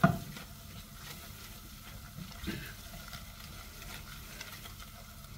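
Silicone spatula stirring and scraping melting butter and cornstarch around a saucepan, the butter sizzling on the gas flame. A sharp knock right at the start is the loudest sound, with a smaller one about two and a half seconds in.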